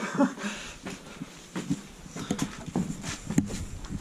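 Footsteps climbing an old staircase: uneven thuds and scuffs, with a few sharp clicks, the sharpest near the end.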